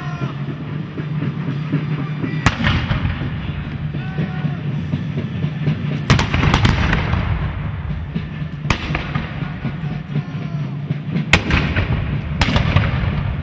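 Black-powder muskets fired singly and at irregular intervals, about six sharp reports with two in quick succession near the middle, over a steady low hum.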